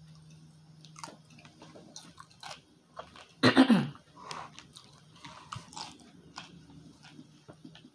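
Close-miked biting and chewing of a chicken and mango salad, with small crunches and wet mouth clicks. About three and a half seconds in, the eater makes a short hummed vocal sound that falls in pitch, over a faint steady hum.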